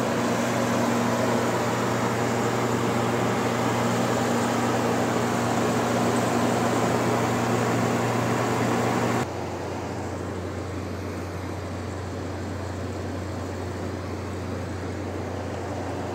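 LG 8000 BTU window air conditioner running: a steady rush of air from the fan over a low motor hum. About nine seconds in it drops abruptly to a quieter, lower hum.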